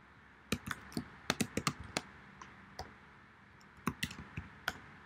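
Typing on a computer keyboard. A quick run of keystrokes, a short pause with a single stroke, then a second short run near the end.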